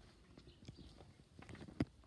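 Scattered soft knocks and shuffling, like steps on a hollow floor, with one sharper knock near the end.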